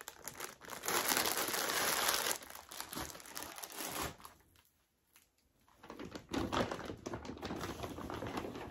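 Plastic packaging crinkling as it is handled, in two spells with a pause of about a second and a half in the middle.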